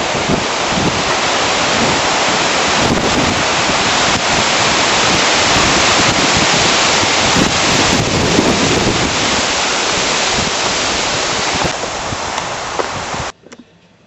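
Strong windstorm wind blowing through thrashing trees and buffeting the microphone, a loud, unbroken rush of noise that cuts off suddenly near the end.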